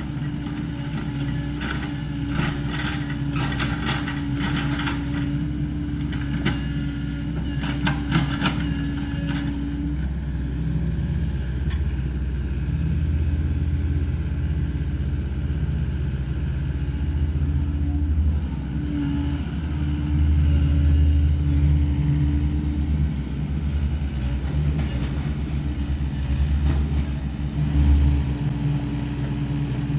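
Sany SY75 excavator's diesel engine running steadily, its low drone swelling several times in the second half as the machine works under hydraulic load. A run of sharp clicks and knocks comes in the first several seconds.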